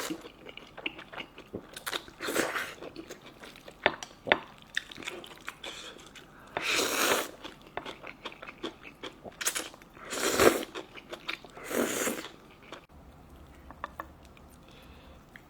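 A person eating close to the microphone: chewing and biting, with a few louder noisy bursts lasting under a second each. It goes quieter near the end.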